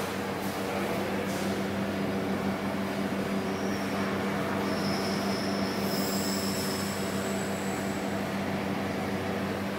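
Large diesel generator set, a Shangchai SC33W1150D2 turbocharged V-type diesel driving a 1000 kVA alternator, running steadily at constant speed: an even drone that holds the same pitch throughout, with faint high-pitched whistles coming and going midway.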